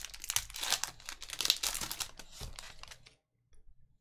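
Foil-lined wrapper of a Panini Select trading card pack crinkling and tearing as it is ripped open by hand, stopping about three seconds in.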